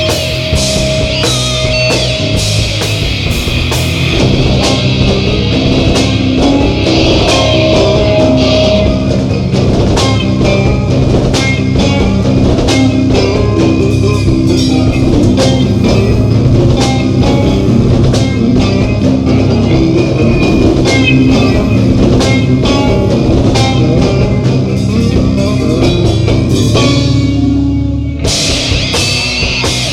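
Stoner rock band playing live: electric guitar and drum kit, with no vocals. Near the end the drums and cymbals break off for a moment, then the full band comes back in.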